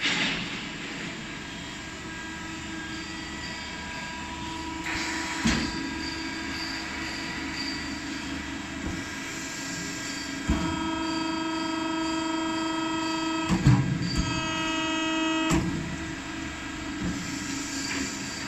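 Automatic foam punching machine and its feed conveyor running during a trial cut. It gives a steady motor hum with a whine of several steady tones that grows stronger about halfway through. A handful of sharp clunks from the machine's moving parts come at irregular intervals, the loudest about two-thirds of the way in.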